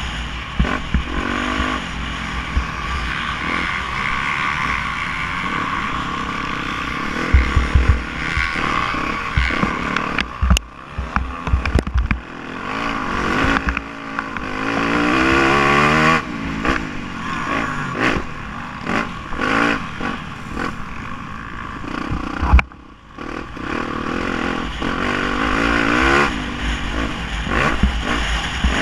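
Yamaha YZ250F four-stroke single-cylinder motocross engine heard onboard, revving up and down as the bike is ridden around the dirt track, with a long rising rev around the middle. Low rumbling and a few loud thumps come through with the ride, and the engine drops back sharply about two-thirds of the way through.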